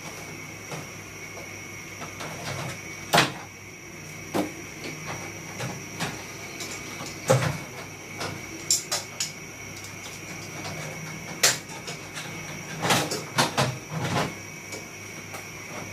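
Plastic casing parts of a split air-conditioner indoor unit knocking and clicking as they are handled and set down, in irregular separate knocks. The sharpest come about three seconds in and just past the middle, with a quick cluster near the end.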